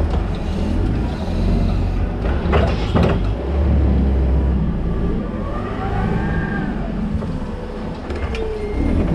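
Toyota counterbalance forklift working, with a steady low rumble and whines that rise and fall in pitch. Two sharp knocks come close together about two and a half seconds in.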